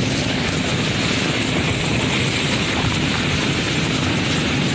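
Steady rush of wind buffeting the microphone and water spraying past an inflatable banana boat being towed at speed over the sea.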